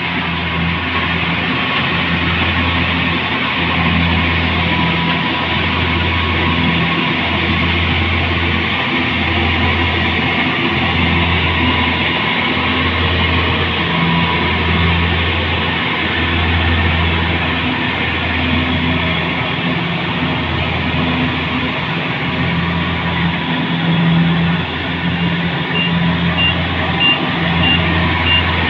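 A rice harvesting machine's engine running steadily under load, with a low throb that swells and dips about once a second. A reversing alarm starts beeping near the end, about two beeps a second.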